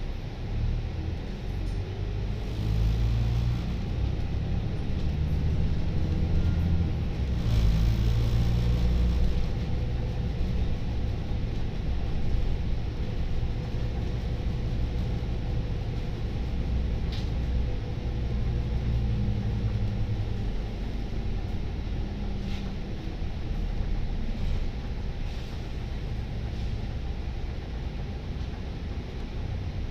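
Volvo B9TL double-decker bus under way, heard from the upper deck: a steady low rumble from its diesel engine and driveline that swells and eases several times as the bus pulls and backs off.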